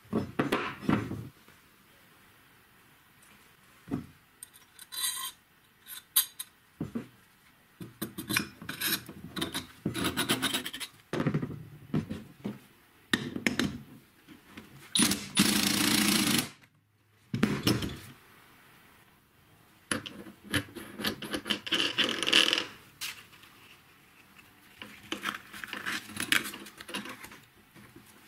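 Metal parts being handled and fitted together as a homemade steel-tube belt-sander arm goes onto an angle grinder: scattered clicks and knocks with bursts of scraping and rubbing, and no motor running.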